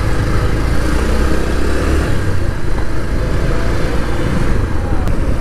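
Motorcycle engine running steadily as the bike is ridden at low speed, heard from the rider's own machine as a steady low rumble.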